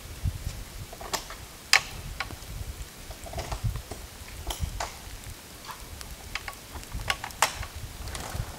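Falling snow ticking and pattering at irregular intervals, with gusts of wind rumbling on the microphone.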